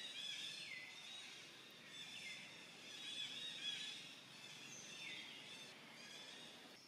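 Faint, high-pitched chirping calls repeated throughout, with three falling squeals near one, two and five seconds in.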